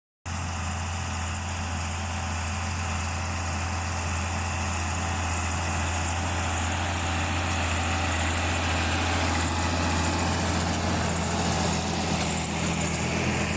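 Tractor engine and its towed straw picking, crushing and baling machine running steadily: a constant low hum under an even mechanical hiss.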